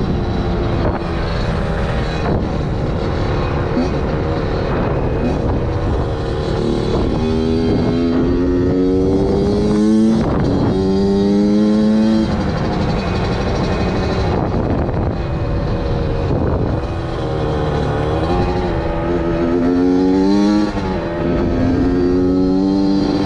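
Suzuki RM85 two-stroke dirt bike engine running under throttle, its pitch repeatedly climbing and dropping back, several times over.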